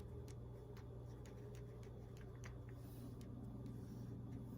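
Quiet room tone: a steady low electrical hum with faint, scattered clicks.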